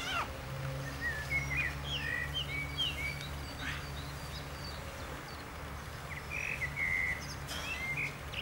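Small birds chirping and calling in short quick phrases, over a low steady hum.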